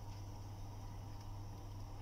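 Spatula stirring thick curry gravy in a pan: soft squishing with a few faint ticks against the pan, over a steady low hum and hiss.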